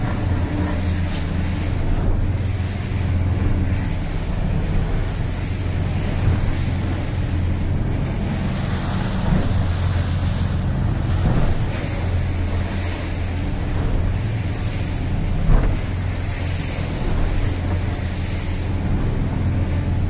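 Sargo 31 motorboat's inboard engine droning steadily under way, heard inside the wheelhouse, with rough water and spray rushing against the hull. A few sudden thuds stand out, the loudest about two-thirds of the way through, as the hull meets the waves.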